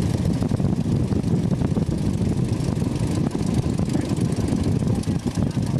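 Open-cockpit biplane's piston engine and propeller running steadily on the ground, heard from inside the open cockpit as a loud, even rumble.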